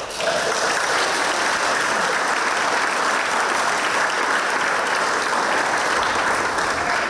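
Audience applauding: a dense, steady clapping that starts abruptly and holds at a constant level.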